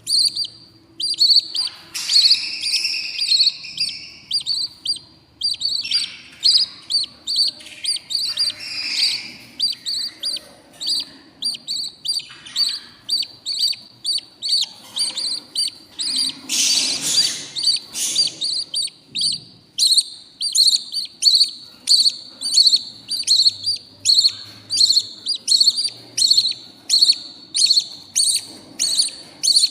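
Baby budgerigar chicks chirping in a nest box: short, high, repeated begging calls of hungry nestlings. Near the end they settle into a regular run of about two calls a second.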